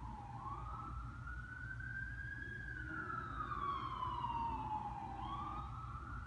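Emergency-vehicle siren in a slow wail: the pitch rises for about two seconds, falls for about two and a half, then rises again near the end.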